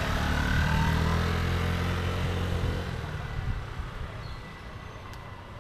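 Small motor scooter engine running at low speed close by, a steady hum that dies away over the second half as the scooter slows or moves off.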